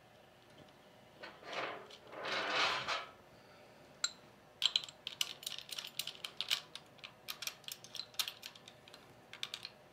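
Two brief rubbing noises, then a small ratchet wrench clicking in quick, irregular runs as it tightens the nuts on a compressor's terminal jumper bars.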